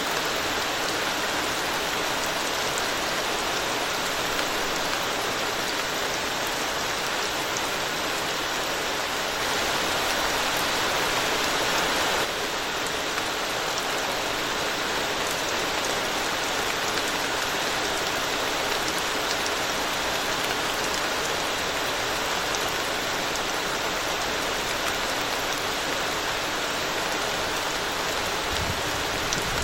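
Steady rain falling on a road, an even hiss with scattered ticks of individual drops. It grows a little louder for a few seconds and then drops back abruptly about twelve seconds in.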